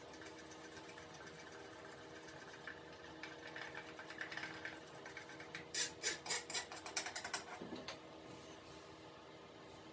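A stick stirring and scraping resin in a small plastic cup while epoxy is mixed: soft scratching at first, then a quick run of sharp clicks and scrapes for about two seconds past the middle, over a steady low hum.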